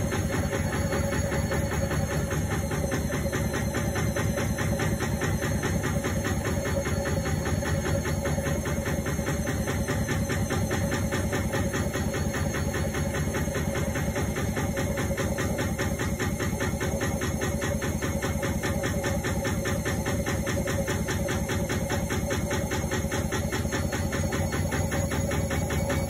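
Indesit front-loading washing machine spinning, its drum knocking in a rapid, even rhythm over a steady hum.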